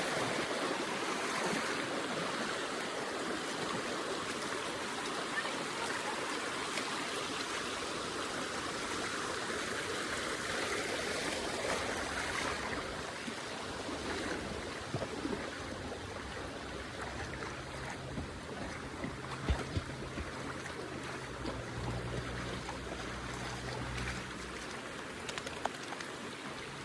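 Small river flowing, a steady rush of running water. A faint low hum joins it for several seconds in the latter part.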